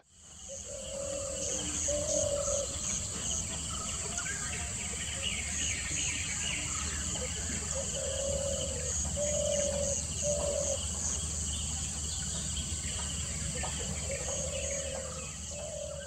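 Outdoor ambience fading in: a bird gives short, low calls of about half a second to a second, several times with pauses between, over a steady high insect buzz and a low rumble.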